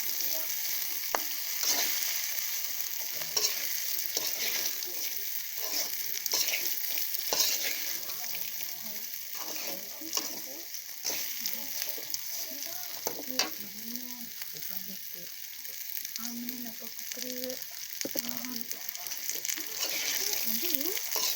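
Tempeh sizzling in hot oil in a pan while it is stirred, with a spatula scraping and clicking against the pan again and again.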